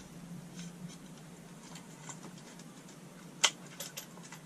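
Faint handling noises of a plastic shower mixer unit: light ticks and taps, with one sharp click about three and a half seconds in, over a low steady hum.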